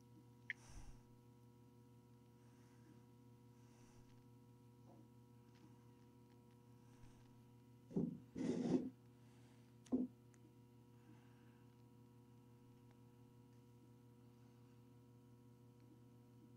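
Telephone line on hold during a call transfer: a faint steady hum with no hold music. A sharp click comes about half a second in, and a few brief bursts of noise near eight and ten seconds.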